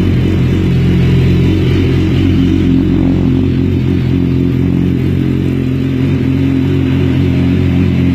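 Honda CBR1000RR inline-four engine, breathing through an Akrapovic exhaust, running steadily at an even engine speed with no revving.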